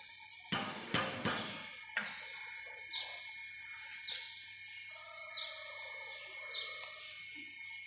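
Four sharp knocks in the first two seconds. After them, a bird gives short falling chirps, four times about a second apart, over a steady high-pitched whine.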